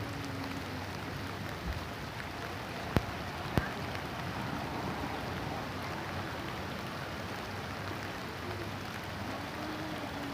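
Steady gentle rain falling. Two sharp taps about half a second apart come about three seconds in.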